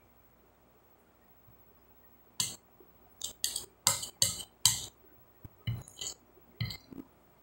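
Metal spoon clinking against a glass plate: a quiet start, then about ten sharp clinks over some four seconds, loudest in the middle.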